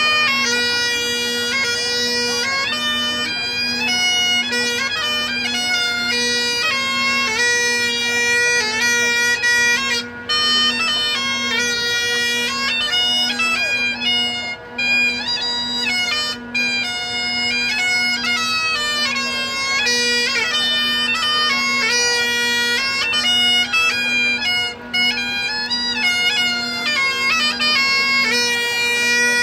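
Bagpipes playing a tune: a melody moving over a steady, unbroken drone, with a few brief dips in the melody.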